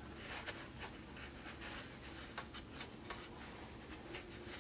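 Faint, irregular scratching and rubbing as hands work on the outboard motor's casing.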